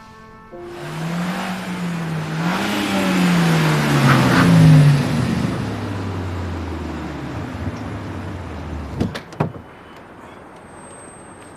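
A car engine revving as the car drives past. Its pitch rises and falls, is loudest about five seconds in, then drops away as it fades. Two sharp knocks follow about nine seconds in.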